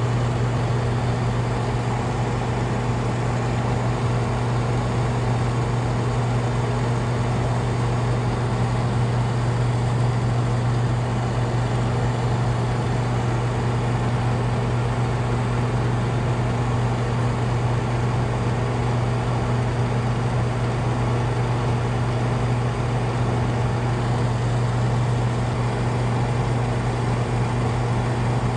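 Paint booth exhaust fan running with a steady, unchanging hum.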